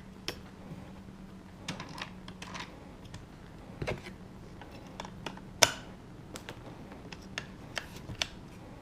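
Irregular clicks and taps of batteries being pressed into the battery compartment of an Arrow Revolution digital deadbolt, with one louder snap a little past the middle.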